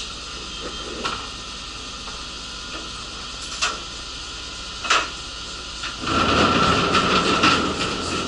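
Inside a stopped city bus: a steady hum with a few sharp knocks, then about six seconds in a loud, rough rattling-hissing noise that lasts a couple of seconds.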